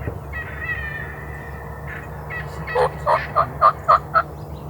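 Wild turkey calling: a held, higher note early on, then a loud run of about seven quick, evenly spaced notes lasting about a second and a half.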